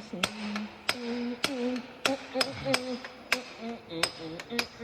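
Hammer blows on steel while repairing a bus's front axle: quick, unevenly spaced strikes, about three to four a second.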